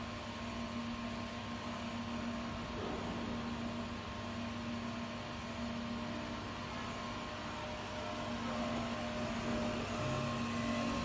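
Automatic pipe-elbow welding machine arc-welding a steel elbow: a steady electrical hum with a constant hiss.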